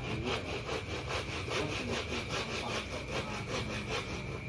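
Hand saw cutting through a wooden strip with quick, even back-and-forth strokes.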